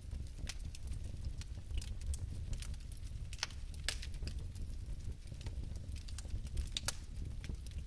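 Fire burning in a fireplace: a steady low rumble of flame with scattered sharp crackles and clicks at irregular intervals.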